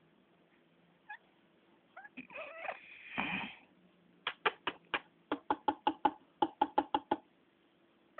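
A parrot calling: a drawn-out call about two to three seconds in, then a quick run of about fifteen short, sharp, clicking calls in three rapid groups.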